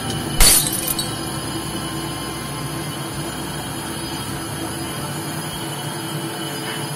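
A single sharp metallic crash or clatter about half a second in, over a steady low hum.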